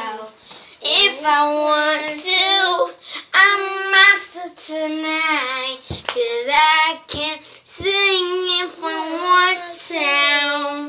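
A child singing in a high voice, holding long notes that slide up and down between breaths. A few short thumps come a little past the middle.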